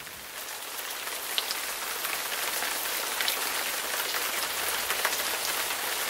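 Steady rain falling, a dense hiss sprinkled with many small drop ticks, growing a little louder over the first two seconds.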